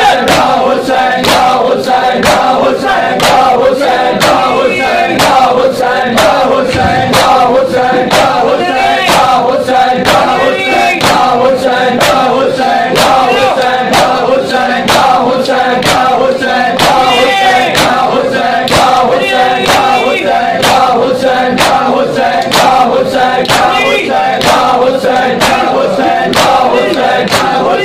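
Crowd of men chanting a noha, a mourning lament, in unison while beating their bare chests with their hands (matam). The slaps land together in a steady, regular beat under the singing.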